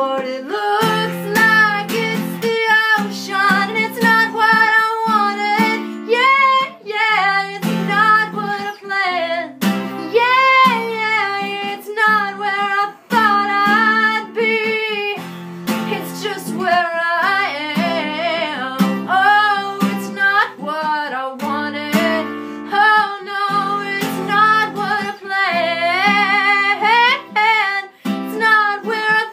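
A woman singing with her own acoustic guitar, strummed chords under a sustained, bending vocal line.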